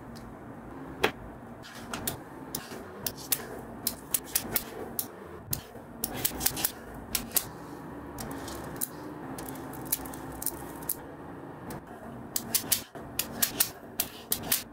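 Small magnetic balls clicking as they snap together. The sharp clicks come at irregular intervals, bunched in quick runs about halfway through and near the end.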